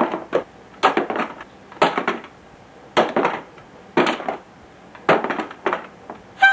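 A run of dubbed cartoon hit sound effects, a sharp crunching smack about once a second, seven in all.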